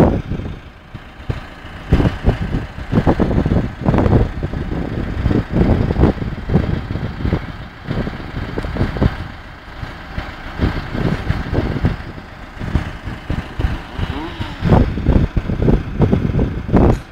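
Konrad Woody 60 forestry harvester working, its engine running under load. The level swells and drops unevenly, with many irregular low thumps.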